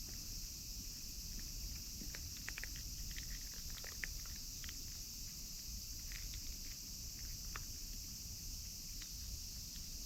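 Insects chirring steadily in a high, even drone, with scattered small clicks and taps over a low rumble.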